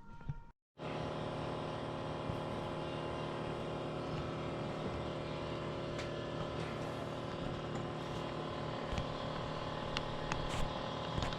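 Steady motor-like hum made of several constant tones over a hiss, with scattered faint clicks, starting abruptly after a moment of silence about a second in.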